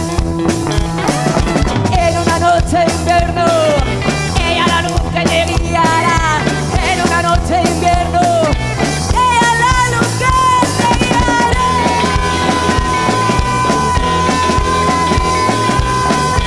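Live rock and roll boogie from a band: a woman singing over hollow-body electric guitars, a steady bass line and drums. From about ten seconds in she holds one long high note.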